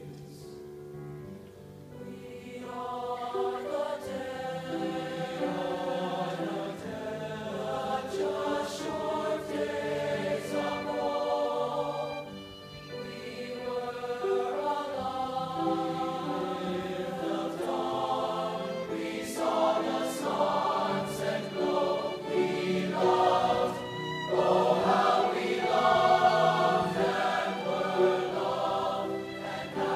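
Boys' choir singing with a solo violin playing along; the sound is thin for the first couple of seconds, then the voices fill in and grow louder toward the end.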